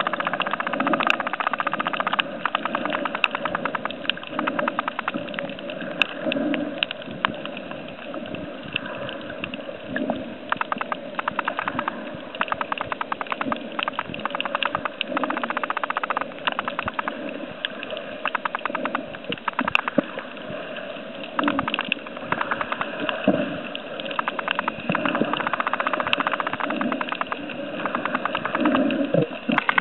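Underwater ambience heard through a camera's waterproof housing: a steady muffled water rush with dense runs of quick crackling clicks and soft low swells every few seconds.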